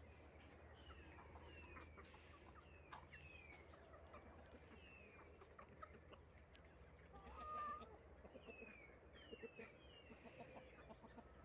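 Faint clucking and calling from a flock of free-range chickens, with many short high falling peeps scattered throughout and one louder call about seven seconds in.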